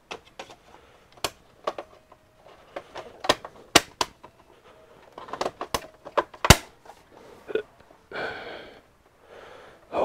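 Irregular sharp clicks and clacks of screws and computer parts being handled while an all-in-one PC is reassembled, the loudest knock about six and a half seconds in, with a short rustle near the end.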